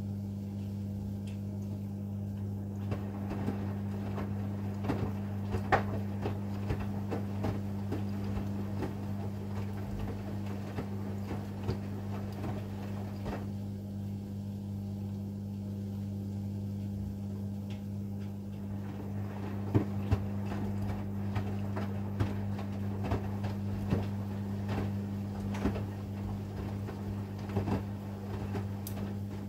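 AEG 8000 Series Lavamat front-loading washing machine in its wash phase. The drum tumbles the laundry for about ten seconds with sloshing and small knocks, pauses for a few seconds, then turns again. A steady low hum runs underneath throughout.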